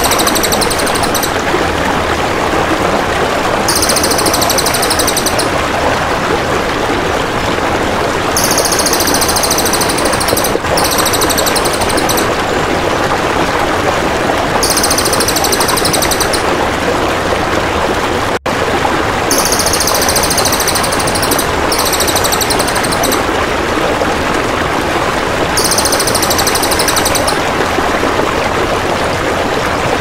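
Steady rush of flowing water. Over it, the high, rapid, buzzy trill of a cililin repeats every few seconds, each phrase lasting about a second and a half.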